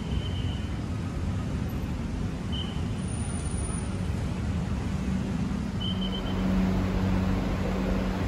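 Steady background traffic noise with a low hum that grows louder about five seconds in, and a few short high chirps.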